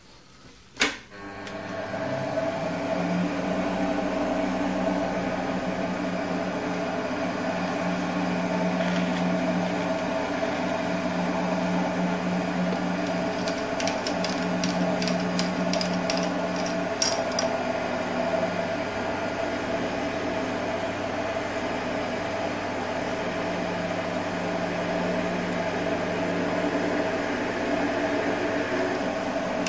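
Optimum D180 x 300 Vario mini lathe switched on with a click about a second in, then running steadily with a motor hum and a whine. A brief run of light ticking comes about halfway through.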